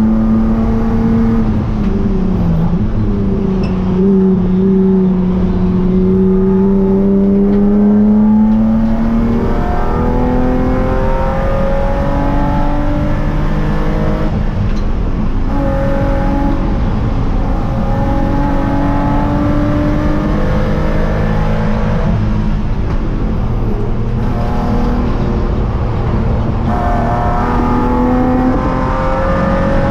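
Spec3 BMW E36 race car's straight-six engine heard from inside its stripped, caged cabin, running hard on track. Its pitch climbs and drops repeatedly, breaking off at several gear changes as the car accelerates and brakes through corners.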